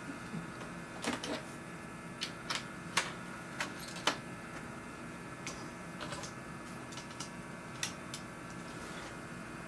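Irregular sharp clicks and knocks of a cable and connectors being handled at a workbench, over a steady low hum.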